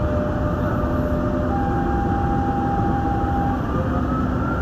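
Dubai Metro train running, heard inside the carriage: a steady rumble of wheels on rails with the whine of the electric traction equipment. One whining tone rises slowly in pitch toward the end as the train gathers speed after leaving the station.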